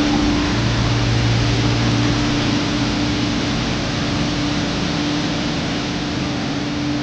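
A steady mechanical hum over an even hiss; a deeper hum joins about half a second in and drops away a couple of seconds later.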